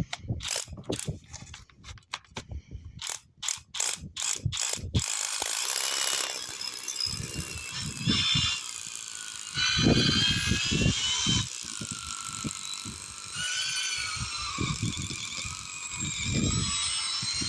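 Mechanical clicking, quick and irregular like a ratchet, for about five seconds, then a continuous mechanical running noise carrying high whining tones that waver in pitch.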